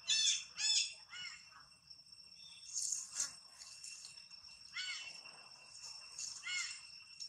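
Short animal calls, each rising and then falling in pitch, in quick runs of two or three near the start, around the middle and near the end, over a steady high ringing tone in the background.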